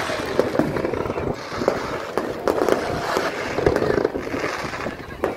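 Aerial fireworks bursting: a quick, irregular run of sharp bangs and crackles over a continuous background din.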